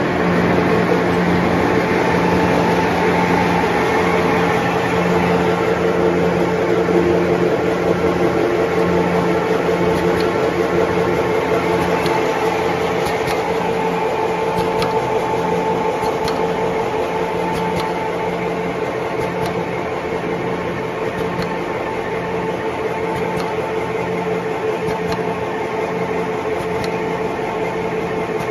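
Charcoal stick extruder running, its electric motor and drive giving a steady mechanical hum with a few faint ticks scattered through it.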